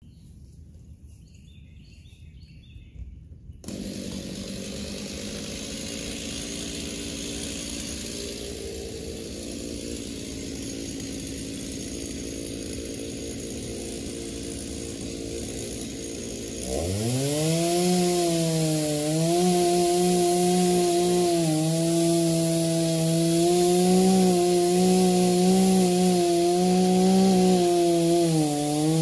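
Stihl chainsaw comes in suddenly about four seconds in and idles steadily. About two-thirds of the way through, its pitch rises sharply as the throttle opens and it runs at full speed cutting into a cedar trunk, the pitch dipping briefly now and then under load.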